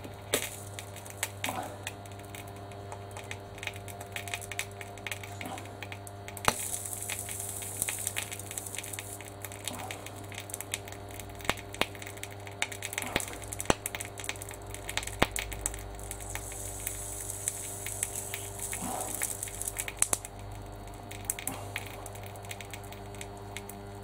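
High-current supply transformer humming steadily while about 900 amps flow through a steel padlock shackle, heating it red hot. Irregular crackles and sharp pops sound over the hum, and a high hiss comes and goes twice.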